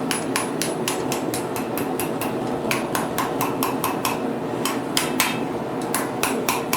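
Hand hammer striking hot steel bar stock on an anvil in quick, steady blows, about four a second with a couple of short pauses, to bend the bar's end around into a small ring. A steady rushing sound runs underneath.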